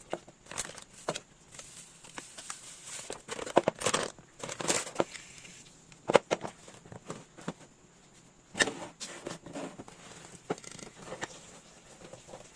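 Handling and refilling a wooden jar: irregular knocks and clicks, with a few short bursts of rustling.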